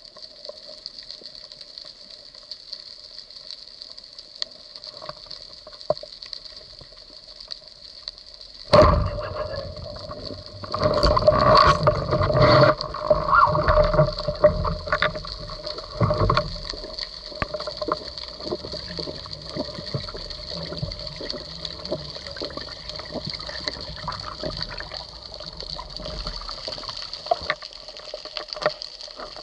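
Underwater sound: a steady hiss with faint crackling, then about nine seconds in a sudden sharp crack as a wooden roller speargun fires at a grouper. A few seconds of loud knocking and churning water follow as the speared fish is fought, before it settles back to hiss with scattered clicks.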